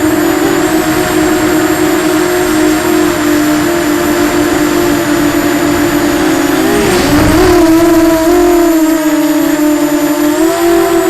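Eachine Falcon 250 quadcopter's electric motors and propellers whining steadily in flight, the pitch wavering with the throttle. About seven seconds in, the pitch dips and bends with a brief low rush. The whine then runs lower and softer before rising again near the end.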